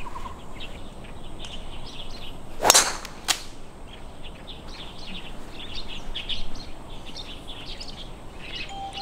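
Tee shot: a golf club head strikes the ball with one sharp crack about three seconds in, followed by a fainter click about half a second later. Birds chirp throughout.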